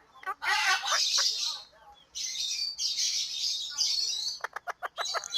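Indian ringneck parakeet chattering in short, high, noisy bursts, with a quick run of clicking notes near the end.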